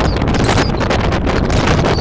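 Wind buffeting the microphone on the open deck of a ferry under way: a loud, rough rush of noise that flutters constantly.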